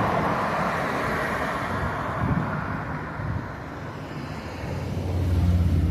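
Road traffic: a vehicle goes by with tyre and road noise that fades over a few seconds, then a low engine hum swells near the end as another vehicle approaches.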